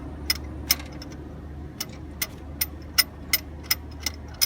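A run of sharp clicks, roughly two to three a second and not quite evenly spaced, over a steady low hum.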